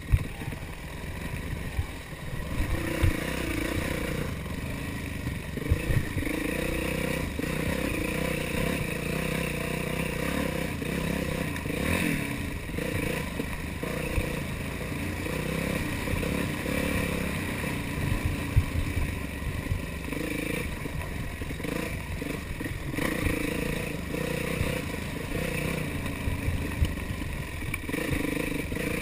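Yamaha YZ450F single-cylinder four-stroke dirt bike engine revving up and backing off again and again as the throttle is worked over rough trail. The bike rattles throughout, with a sharp knock now and then from hitting rocks and roots.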